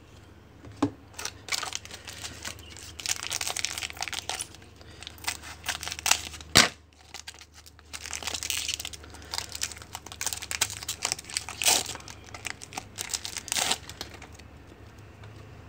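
Trading-card pack wrapper crinkling and tearing as a Panini Donruss Soccer pack is opened, with the cards inside being handled in irregular rustling bursts. A sharp knock comes about six and a half seconds in.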